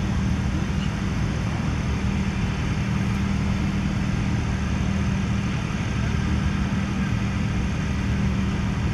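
Steady, unchanging low engine hum with no breaks.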